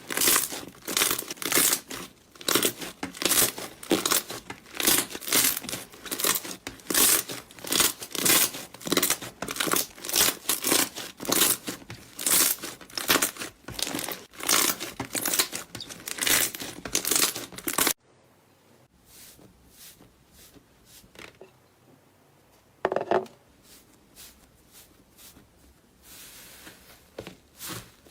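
Slime being squished and pressed by hand over and over, about two squishes a second. It cuts off suddenly about two-thirds of the way through, leaving faint room sound with a single soft knock.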